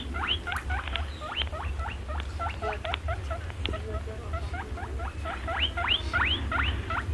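Many short, high, rising squeaks or peeps from a group of small animals, several a second and overlapping, over a steady low hum.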